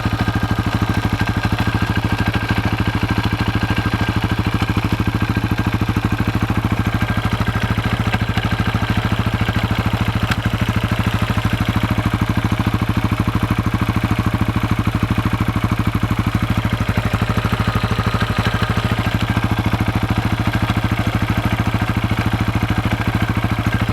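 KTM 640 LC4's single-cylinder four-stroke engine running at a steady idle, with a tac-tac clacking from the left side of the engine. The owner fears a fault in the crankshaft or the clutch basket, since the clacking stops only when a gear is engaged with the clutch held in.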